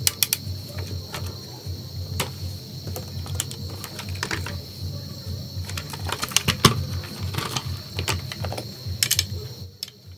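Irregular plastic clicks and taps from a screwdriver and the plastic body panels of an RC dump truck being handled and taken apart. A steady high tone and a low hum run behind them.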